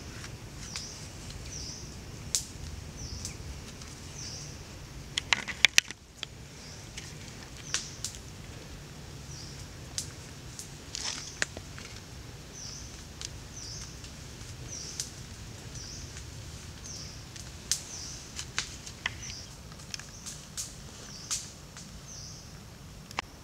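Spoon and hands stuffing a filling into long eggplants, heard as scattered sharp clicks and taps, with a quick cluster of them about five seconds in. Underneath, a short high call repeats about twice a second over a low steady rush of running water.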